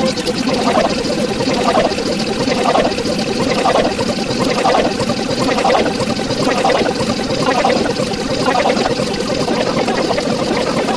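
Watery pouring or gurgling sound that swells about once a second.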